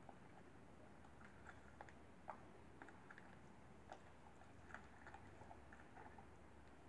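Near silence, with faint scattered small clicks, the sharpest about two seconds in.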